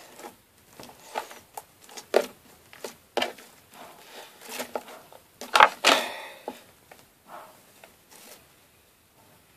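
Blue glitter slime being squished and folded by hand to trap air for bubbles, giving a series of wet clicks and small pops, the loudest about six seconds in.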